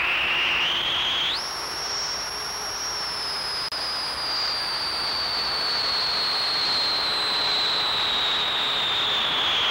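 A high electronic whistling tone over a steady hiss. It glides upward, jumps higher a little over a second in, then slowly sinks, with a brief dropout near the middle.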